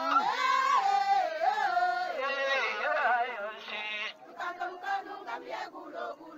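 A group of women singing a chant together in a rising and falling line. About four seconds in the singing drops away to quieter scattered voices and a run of short sharp knocks.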